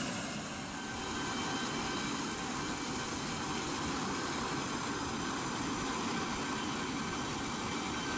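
Steady rushing noise of a parked jet airliner's turbine running, with a faint high steady whine over it.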